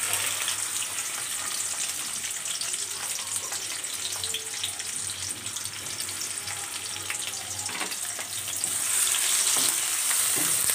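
Sliced onions sizzling and crackling in hot oil in a kadai as they are dropped in by hand to sauté. The frying gets a little louder near the end, when they are stirred with a spatula.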